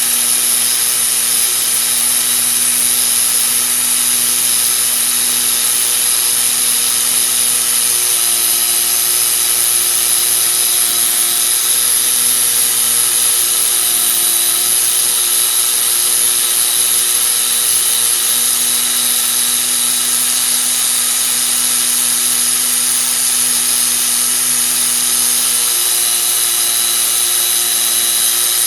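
Brake disc being ground down on the car, a steady mechanical whine with a high hiss of abrasion that shifts slightly in pitch now and then. The disc is being resurfaced to remove wear grooves that caused a squeak.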